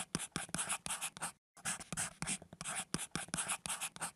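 Pen-on-paper writing sound: quick, irregular scratchy strokes, with a short pause about a second and a half in.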